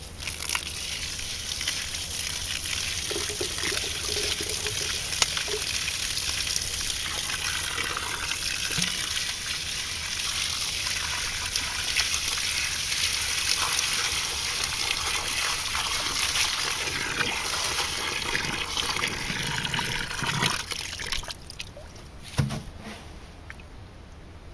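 Ten litres of water poured in a steady stream into a 60 cm deep hole dug in stony soil, splashing on the bottom: the filling of the hole for a soil percolation test. The pour stops about 21 seconds in, and a single knock follows a second later.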